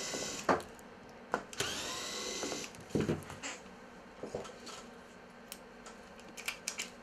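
Small electric screwdriver working a screw in a fishing reel's spool assembly, whirring in two short runs that rise in pitch as the motor spins up: one cutting off just after the start, the other from about a second and a half to nearly three seconds in. Sharp knocks of metal reel parts on the bench fall between and after the runs, then a few light clicks.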